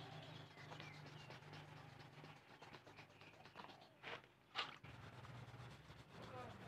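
Near silence with faint hand rubbing of wet 1000-grit sandpaper on a car's painted plastic bumper, smoothing a scratch repair; two short louder scrapes come about four seconds in.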